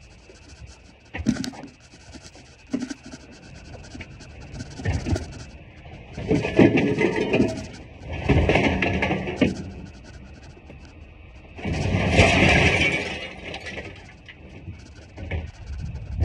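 Scrap metal being handled in a pickup truck bed: a few knocks early on, then three longer clattering scrapes, about 6, 8 and 12 seconds in, as pieces are dragged across the bed and thrown onto the pile.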